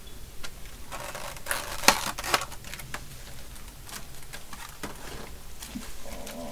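Small clicks and rattles of toggle switches being handled and nudged into square alignment on a circuit board, with one sharper click about two seconds in.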